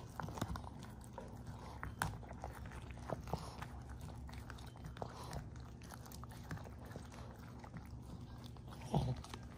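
Boston Terrier gnawing a dried lamb ear chew with the fur on: irregular soft crunches and clicks of teeth biting into the chew, over a faint low hum, with one short louder sound near the end.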